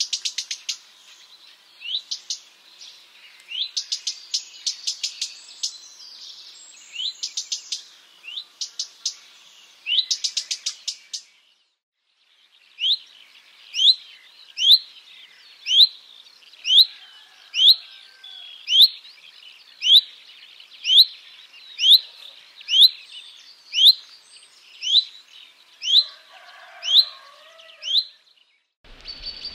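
Common redstart calling: rising whistled "hweet" notes, each followed by a quick run of dry ticks, the species' alarm call. After a short break about halfway through, a steady series of single rising "hweet" calls about once a second.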